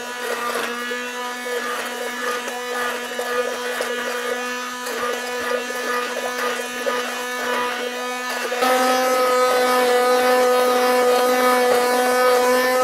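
Handheld immersion blender running steadily, submerged in a pot of thick, chunky tomato sauce and pureeing it smooth. The motor's hum gets louder and a little higher about two-thirds of the way through.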